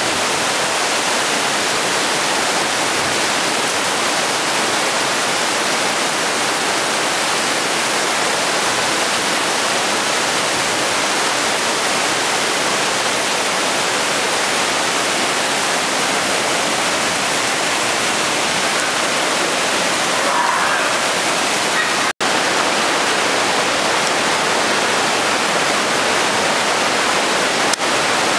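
Hammersbach mountain torrent rushing through a narrow rock gorge: loud, steady white-water noise from the stream and its falls. The sound drops out for an instant about three quarters of the way through.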